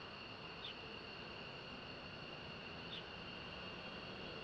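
Insects droning, a steady shrill sound held at two high pitches. A short falling chirp comes twice. A faint low rumble runs underneath.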